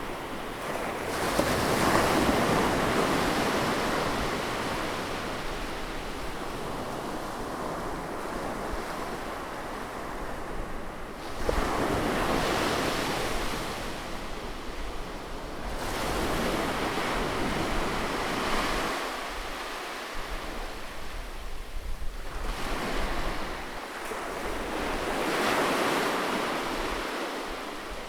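Sea waves breaking and washing up on a shore, the surf swelling and fading every few seconds. A low wind rumble sits underneath.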